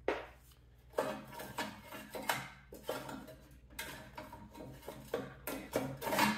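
Irregular sharp metal clicks and clatter, about two or three a second, from a 10 mm wrench working loose the side bolts of a snowblower engine's plastic shroud.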